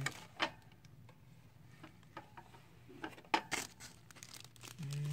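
Packaging being handled during an unboxing: crinkling and tearing with scattered sharp clicks and rustles. A brief steady low hum comes in near the end.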